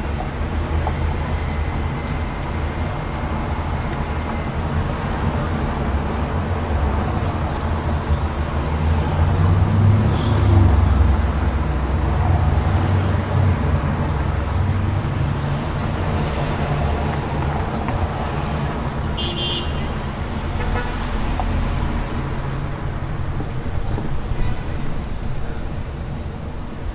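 City street traffic: engines and tyres, with a heavy low rumble from a passing vehicle swelling about ten seconds in. A brief high-pitched horn toot sounds near twenty seconds in.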